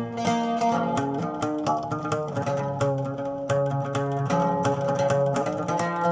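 Instrumental music led by a plucked string instrument playing a quick run of notes over a lower sustained accompaniment. It is the instrumental introduction of an Arabic song before the vocals come in.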